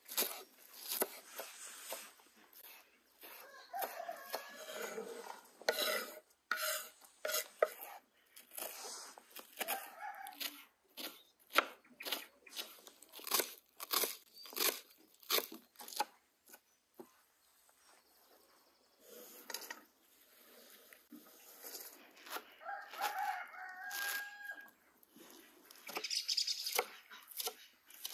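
Chickens: a rooster crowing and hens clucking, over many irregular sharp taps and knocks.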